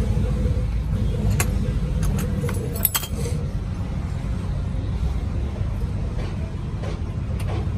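Steady low rumble, like nearby engines or traffic, under a few light metal-on-metal clinks about one and a half to three seconds in, from a hand tool working at the base of a steel bottle jack.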